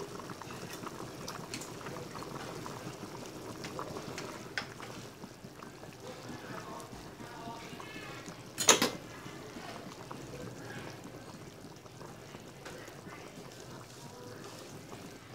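Soup bubbling at a hard boil in a metal pot, with small pops and clicks. About nine seconds in there is one sharp knock, the loudest sound.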